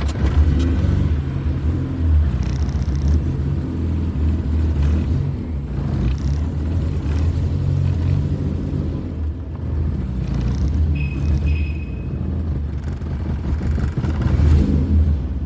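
A 1992 VW Voyage GL's 1.8-litre four-cylinder engine running with a steady low rumble.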